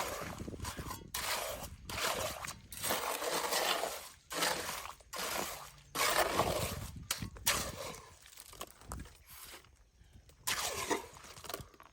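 Masonry work with stones and cement mortar: a run of gritty scrapes and crunches about once a second, thinning out near the end.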